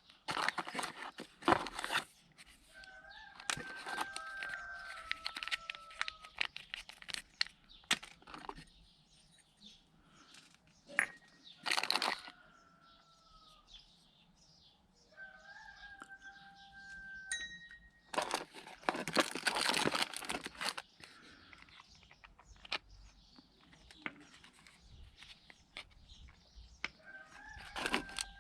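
A rooster crowing about four times, each a held call of a second or two that steps down in pitch. Scattered clicks and knocks of hand-tool work on metal, and a few louder noisy bursts of a second or two, come in between.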